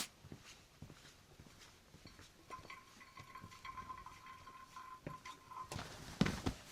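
Light clicks and clinks of camp cookware during coffee and breakfast making. A faint steady whistle-like tone holds for about three seconds in the middle, then a hiss and heavier knocks start near the end.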